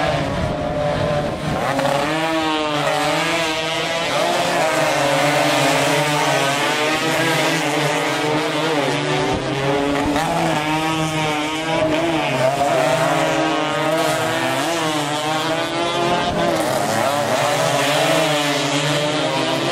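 A pack of 115 cc racing motorcycles running hard at high revs. Several engines overlap, their pitch rising and falling as they accelerate and pass.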